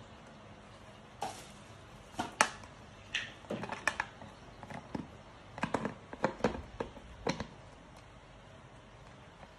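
Irregular clicks and knocks of blender parts being handled and fitted together while the motor is reassembled, starting about a second in and stopping near the end, loudest about two and a half seconds in.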